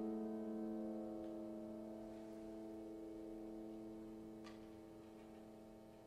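A grand piano chord ringing on and slowly fading after being struck, its several notes held steady as they die away, with a few faint clicks over it.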